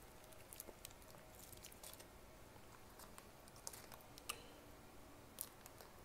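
Faint close-miked crinkling and small clicks of a condiment packet and the paper burger wrapper being handled, with three sharper snaps in the second half.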